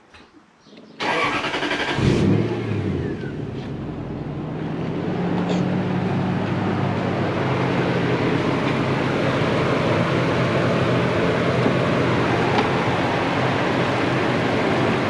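Toyota 1UZ-FE VVT-i V8 cranked on the starter about a second in, catching within a second with a brief rev, then settling into a steady idle. It is running on an aftermarket Link ECU with the airflow meter removed.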